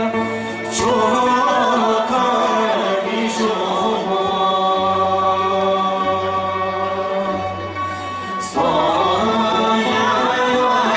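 Bhutanese folk song sung by a group of voices over a steady low backing tone, accompanying a traditional dance; a new sung phrase starts loudly about eight and a half seconds in.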